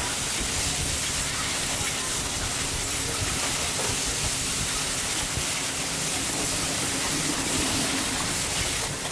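Steady sizzling hiss of a large wok of flat noodles with bean sprouts and chives frying over high heat while being stirred.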